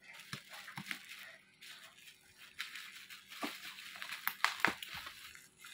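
Black plastic parcel wrapping crinkling and rustling as hands turn and press on the package, with a few sharp crackles.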